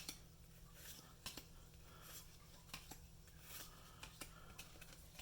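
Faint, irregular soft clicks and slides of Yu-Gi-Oh trading cards being handled and flipped through, over a low steady background hum.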